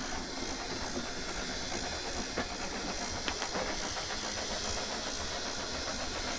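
Mammotion Yuka 2000 robotic lawnmower's electric motors running steadily as it resumes mowing long grass, heard as an even hiss and hum with a few faint ticks.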